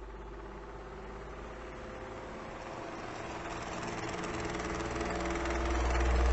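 Electric fan running with a steady motor hum and air noise, growing gradually louder through the second half.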